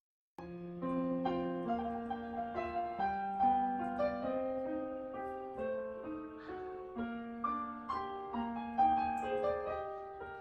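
Piano music starts about half a second in: a melody of single notes over a slower, lower part.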